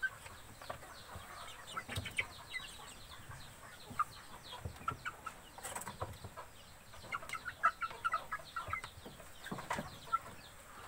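Young 50-day-old native chickens peeping in many short, high, falling cheeps as they crowd and peck at a plastic feed trough, with a few sharp taps mixed in.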